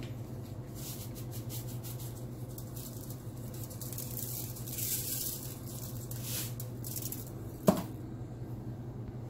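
Aluminium foil crinkling and rustling on and off as it is handled and folded, over a steady low hum, with one sharp knock about three-quarters of the way through.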